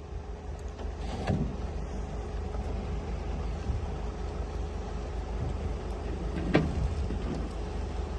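Mercedes refrigerated van running at idle: a steady low hum with a faint steady whine above it. Two faint knocks sound over it, about a second in and again later.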